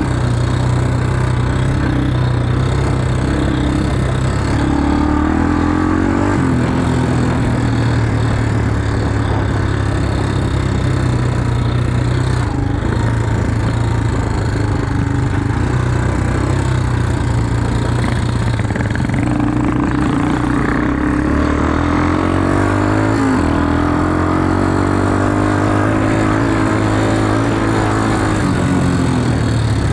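Quad bike (ATV) engine running over rough dirt tracks, its pitch rising and falling several times as the throttle opens and closes.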